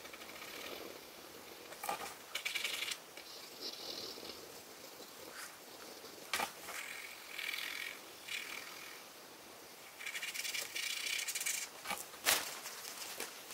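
Graphite pencil scratching across drawing paper in short bursts of rapid shading strokes, with two sharp knocks between them.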